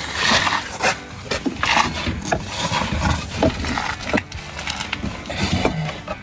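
Irregular knocks, clanks and scrapes of tools and suspension parts being handled while a shock is fitted.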